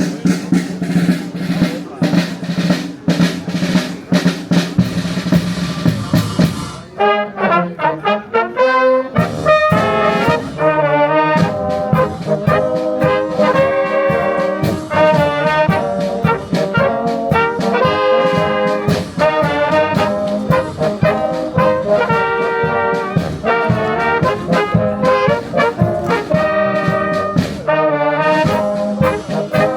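Brass band music. A held low chord sounds under rapid drum strokes, then about seven seconds in a trombone and trumpet melody begins over a steady beat.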